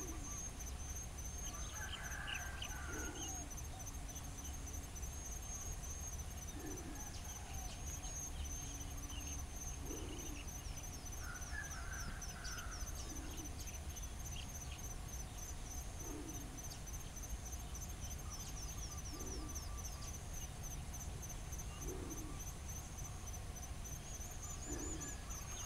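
Natural background of insects chirring steadily at a high pitch, with a low hooting call repeating about every three seconds and a couple of brief higher bird calls.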